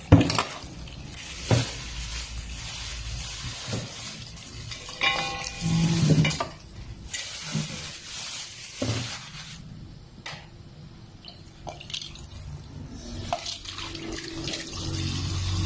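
Kitchen tap running into a stainless steel bowl of string beans and tomatoes in a steel sink, with several sharp knocks and clatters of the metal bowl against the sink. Near the end the rinse water is poured off the bowl.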